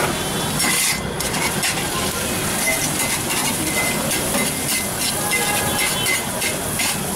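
Food sizzling on a flat metal griddle while a metal spatula scrapes and chops through chicken, egg and tofu in repeated quick strokes.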